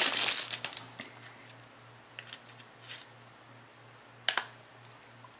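Clear plastic bag crinkling as it is pulled off a Baofeng UV-5RE handheld radio, then small clicks and taps as the radio is handled, with one sharp click about four seconds in.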